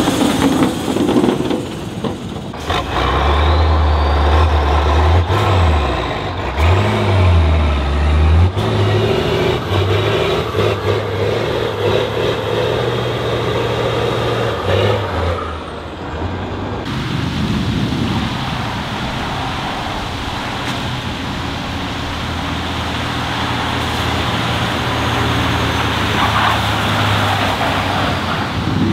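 Heavy Tatra truck diesel engines running and revving on a skid pad. The engine note rises and falls several times in the first half, then runs steadier after a change about two-thirds of the way through.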